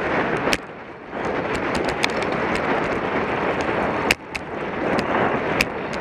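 Wind rushing over a bike-mounted camera's microphone while racing, with scattered sharp clicks and knocks from the bike and camera mount. The rush drops briefly about half a second in, and a sharp knock comes about four seconds in.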